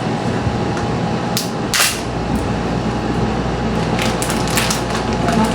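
Steady appliance hum with a few sharp clicks and knocks of kitchenware being handled, the brightest just under two seconds in and a cluster near the end.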